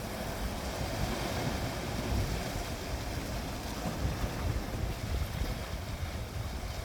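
Winter sea waves breaking and washing ashore in a continuous rush, with wind rumbling on the microphone.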